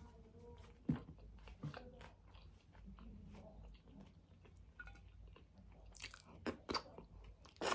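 Close-up chewing and biting of a crunchy chicken tostada on a fried corn tortilla. Sharp crunches come about a second in, again shortly after, and several in quick succession near the end, over quieter wet chewing.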